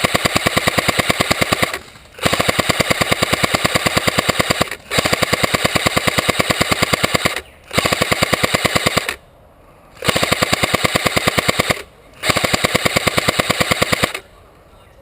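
Airsoft rifle firing long full-auto bursts, six strings of rapid, evenly spaced shots about two seconds each with short pauses between: suppressing fire on enemy positions.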